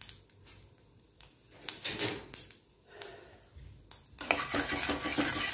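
Spiced oil tempering in a kadhai: scattered pops and crackles from mustard seeds and spices in the hot oil, which turn into a steadier sizzle about four seconds in.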